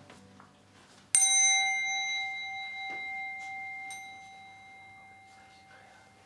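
A small handheld Buddhist bell is struck once with a metal rod about a second in. It rings a clear tone that slowly dies away over several seconds, the signal that ends the sitting meditation.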